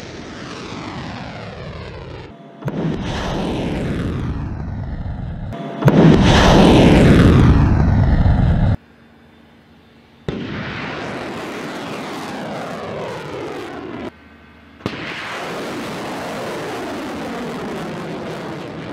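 Roar of rocket-propelled missiles launching, heard in five short clips one after another, each cut off abruptly. In each, the rushing roar sweeps downward in pitch as the missile climbs away, and the third, about six seconds in, is the loudest.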